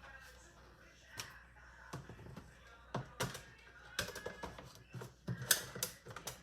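Irregular light knocks and clicks of objects being handled and set down, coming more often in the second half.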